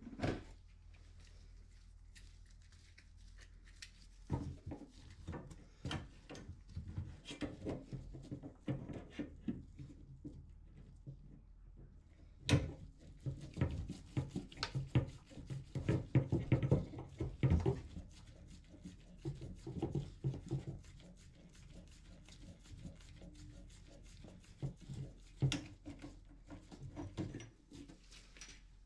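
Hands handling tools and plumbing parts in a small tiled bathroom: irregular clicks, knocks and rubbing, busiest about halfway through.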